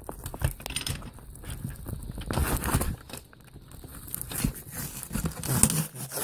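Cardboard box being handled and opened by hand: crinkling, scraping and tape tearing with scattered small knocks, loudest about two and a half seconds in and again near the end.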